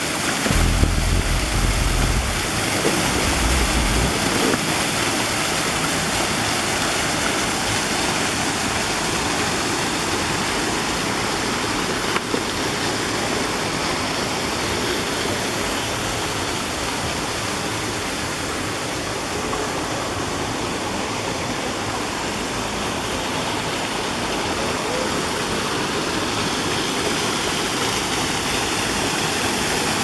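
Small waterfall falling into a shallow rock pool: a steady, even rush of splashing water. A low rumble sits under it during the first few seconds.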